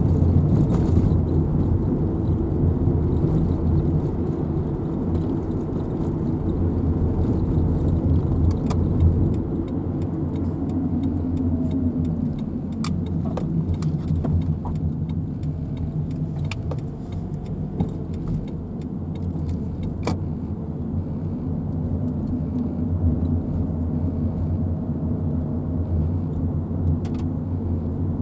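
A car running on the road: a steady engine and road rumble, with scattered light clicks and rattles.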